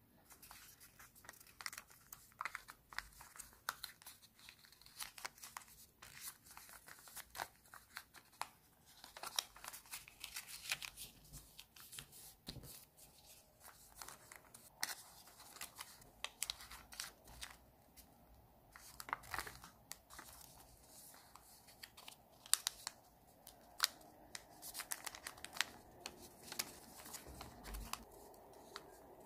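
A sheet of origami paper being folded and creased by hand, giving a long run of short crisp crinkles and rustles.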